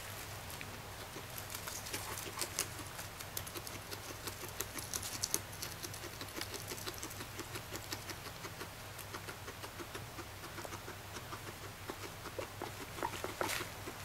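Guinea pig chewing hay: a rapid, continuous stream of small crisp crunches, with a flurry of louder crunches near the end.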